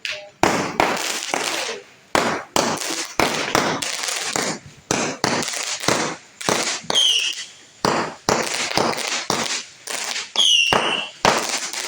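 Fireworks going off in quick succession: a string of sharp bangs, about one or two a second, each trailing off in crackle. A brief high-pitched tone sounds twice, about seven and ten and a half seconds in.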